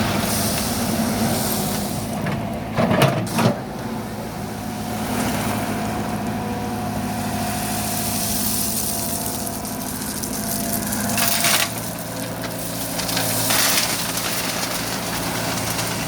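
Heavy diesel truck engine running steadily, with a few short, loud noisy bursts about three seconds in and twice more later on.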